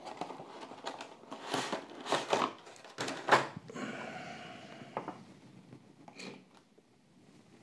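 Cardboard and plastic packaging of a Matchbox five-pack being handled and opened. Crinkling, scraping rustles come over the first few seconds, then a drawn-out sliding scrape of about a second as the plastic blister tray comes out, then fainter handling.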